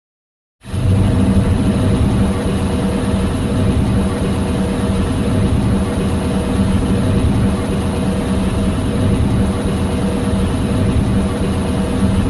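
A film sound effect of a steady, loud mechanical rumble, like a large engine running, with a faint steady hum over it. It starts suddenly after a short silence about half a second in and holds level.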